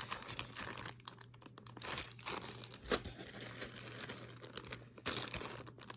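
Packaging crinkling and rustling as pieces of jewelry are unwrapped and handled, with one sharp click about three seconds in.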